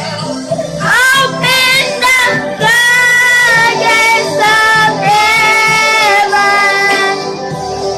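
A high female voice singing a worship song in long, held notes with vibrato, over a steady low instrumental backing.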